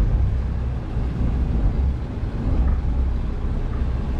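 Low, steady rumble of a 60-foot Prestige motor yacht's diesel engines ticking over in gear, easing the boat sideways toward the dock.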